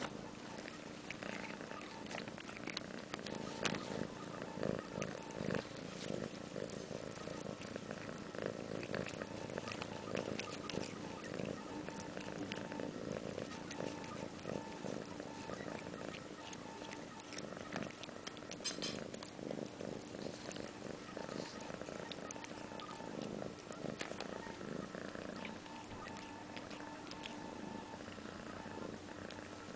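Domestic cat purring steadily up close, mixed with the fine crackle of cat grass being nibbled and brushed against.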